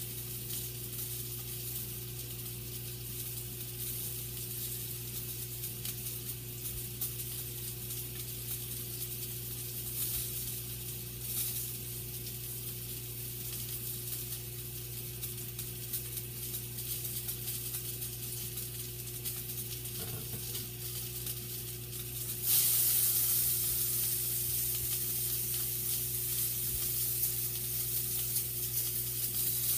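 Sausage frying in a pan, a steady sizzle that jumps suddenly louder about three-quarters of the way through as the pan is stirred with a spatula. A steady low hum runs underneath.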